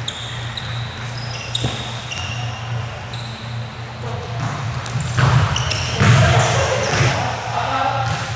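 Court shoes squeaking on an indoor floor in many short high chirps, with a ball hitting the floor and players' voices that grow louder about five to seven seconds in. A steady low hum runs underneath.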